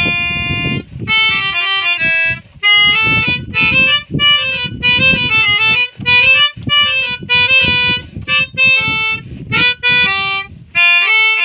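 Harmonica playing a melody of short notes, often several at once as chords, with brief pauses between phrases.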